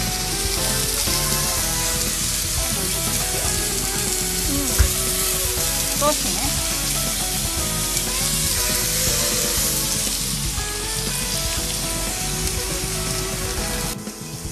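Steak and onions sizzling on a hot iron plate, a steady loud hiss, with a sharp clink about five seconds in; background music runs underneath. The sizzle drops away near the end.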